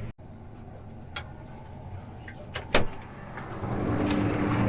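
John Deere T670i combine harvester running, heard from inside the cab: a steady low hum with a few sharp clicks, the loudest about three seconds in. About a second before the end the machine noise grows louder, with a steady tone in it.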